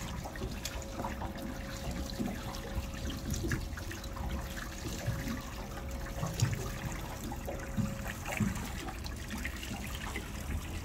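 Small waves lapping and trickling against the hull of a small boat sitting still on the water, with irregular soft slaps and splashes. A faint steady tone runs underneath for most of it and stops about eight seconds in.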